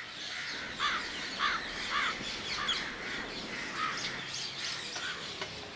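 Several birds chirping and calling, one repeating a short call about every half second for the first few seconds.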